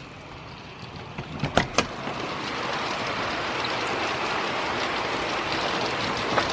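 Heavy rain pouring down as a steady hiss that swells up in the first couple of seconds. A few sharp knocks sound about a second and a half in.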